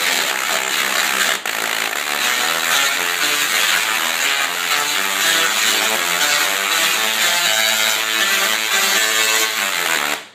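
A 10 kVA dual-resonant solid-state Tesla coil (DRSSTC) buzzing loudly through its arcs as it plays a MIDI tune, its spark discharge stepping from note to note.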